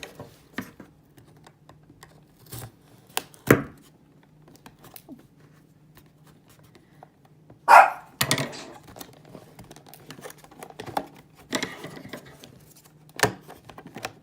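A dog barks once, loudly, about eight seconds in, amid sharp clicks and rustles of a plastic toy package being pried open.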